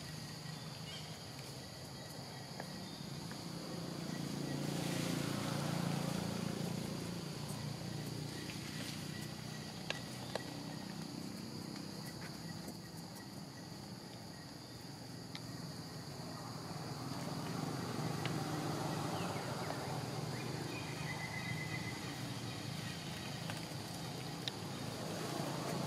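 Outdoor forest ambience: a steady high-pitched insect drone, with a low rumbling noise that swells and fades twice and a few sharp clicks.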